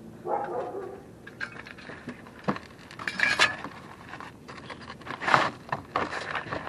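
Metal hand tools clinking, rattling and scraping in irregular bursts, with several sharper clinks spread through.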